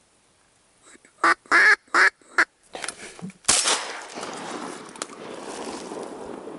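Four loud duck quacks in quick succession, then about a second later a single shotgun shot whose report rolls and echoes on, slowly fading.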